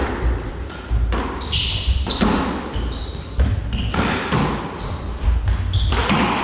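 Squash rally: the ball cracking off racquet strings and the walls in quick succession, about one hit every half second to second, with sneakers squeaking on the hardwood court floor between the shots.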